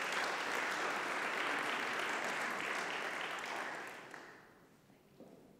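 Audience applauding after a talk. The clapping dies away about four seconds in.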